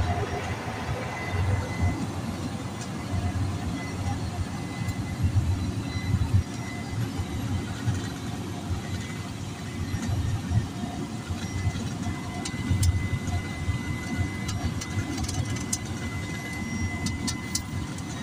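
Cabin noise of a small turboprop plane taxiing after landing: a steady engine drone with an uneven low rumble from the wheels on the pavement and a steady high whine. A few faint clicks come near the end.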